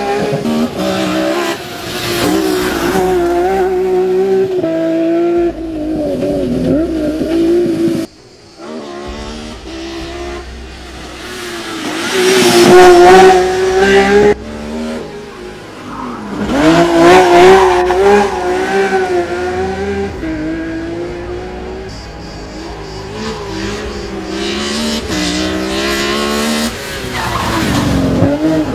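BMW E46 M3 hill-climb race car at full throttle, its engine revving up and falling back through corners and gear changes, with tyre squeal as it slides through the bends. Several passes go by, loudest about twelve and seventeen seconds in, with a sudden brief drop about eight seconds in.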